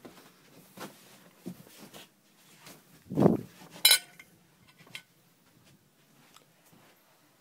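Scattered knocks and clatter of objects being handled, with a loud thump about three seconds in and a sharp clink with a brief ring just after it.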